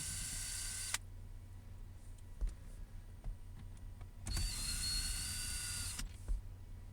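A small electric motor whirring with a steady high whine in two runs of about a second and a half each, the second starting about four seconds in, with a few faint clicks between them.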